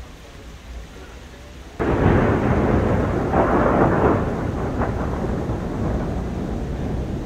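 Thunder breaks suddenly about two seconds in and rolls on in a long, swelling rumble over falling rain.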